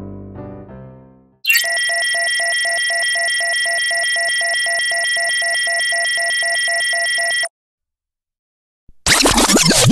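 Piano music fades out, then a steady high electronic tone with a faint pulsing about four times a second sounds for about six seconds and cuts off suddenly. After a short silence, a burst of falling synthesized sweeps starts near the end.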